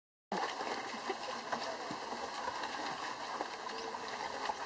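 Wooden ox cart rattling along a dirt track: a steady noisy rumble with scattered small knocks, and faint voices in the background.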